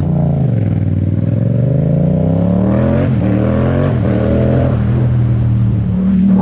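Yamaha MT-07 parallel-twin engine accelerating through an Akrapovic titanium exhaust. The pitch climbs for about three seconds, drops at a gear change about three seconds in and again a second later, then holds steady.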